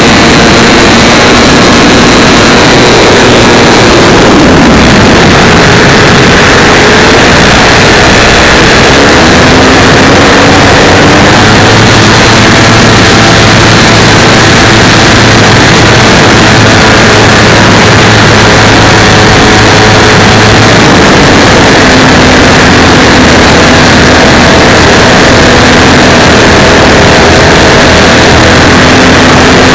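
The 55cc gas engine of a 30% Yak 54 radio-control aerobatic airplane in flight, loud through a small camera microphone mounted on the wing. The engine pitch falls about four seconds in, climbs again around ten seconds, and shifts once more about two-thirds of the way through as the throttle is worked.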